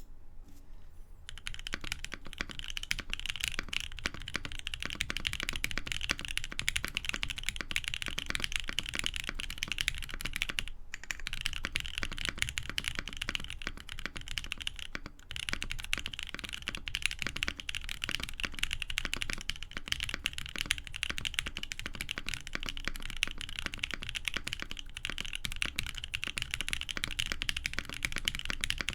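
Fast, continuous typing on a custom mechanical keyboard: a polycarbonate-cased 60% board with an FR4 plate, linear switches with cream stems and ink housings lubed with Krytox 205g0, and GMK keycaps, giving a dense run of key clacks with two short pauses.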